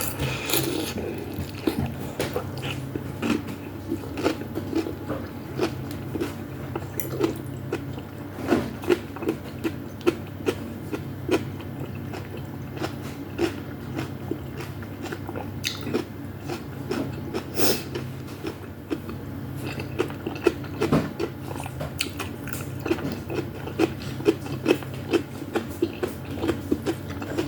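Close-miked chewing of soup with meatballs and vegetables: a steady run of wet mouth clicks and smacks, several a second.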